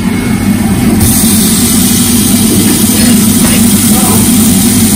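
Steady low machine hum, joined about a second in by a frying sizzle as chopped tomatoes go into a hot pan of pork and onions.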